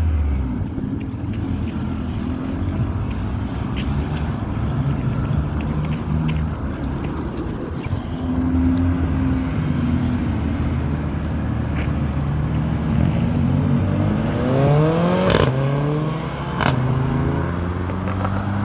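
BMW 335i turbocharged straight-six running low for most of the time, then revved up a few times near the end, with sharp exhaust pops as the revs come up and drop.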